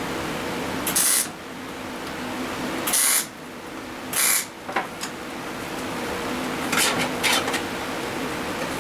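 A shop tool working a small sheet-metal patch piece: three short, hissing bursts in the first half, then fainter crackling near the end, over a steady hum.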